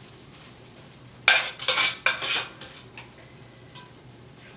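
A spoon scraping and clinking against a stainless steel pot while stirring ground beef, in a quick cluster of strokes between about one and two and a half seconds in.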